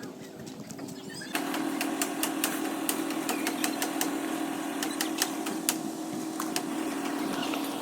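A small engine running steadily, coming in abruptly about a second and a half in, with frequent sharp clicks and knocks over it.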